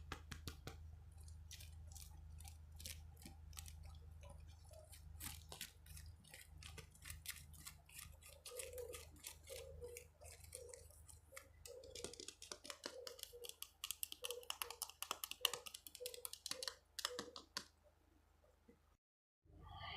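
Rapid light clicks and taps on a handled object, thickening about halfway through with a regular soft thudding under them, then cutting off suddenly near the end.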